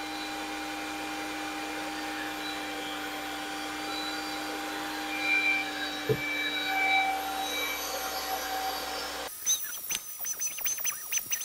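Electric drill running at a steady speed with a constant whine, spinning an engine valve held by its stem while an abrasive pad and lube scrub the carbon off its head. About nine seconds in the drill sound cuts off abruptly, and a high wavering chirp with light scratching follows.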